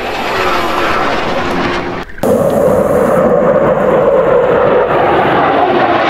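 Fighter jet engine noise: a loud, steady rush with a strong low hum that cuts in after a brief drop about two seconds in. A quieter rushing noise comes before the drop.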